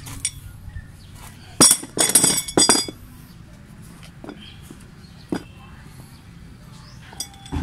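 Metal clinking as the steel hooks and rods of a coil spring compressor are set against the coils of a strut's coil spring: a cluster of sharp ringing clinks from about a second and a half to three seconds in, and one more a little past five seconds.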